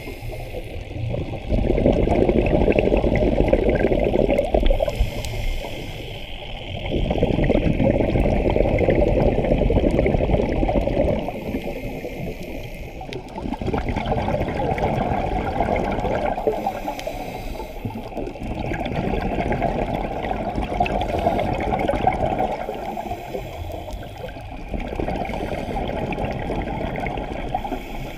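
Scuba diver's exhaled bubbles gurgling from the regulator, heard underwater. The bubbling comes in stretches of several seconds each, with quieter gaps and short hisses between them, which is the rhythm of regulator breathing.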